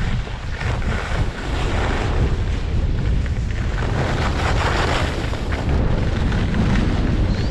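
Wind buffeting the microphone of a camera carried by a skier going downhill, a heavy steady rumble, with the rough hiss and scrape of skis sliding and carving on packed snow.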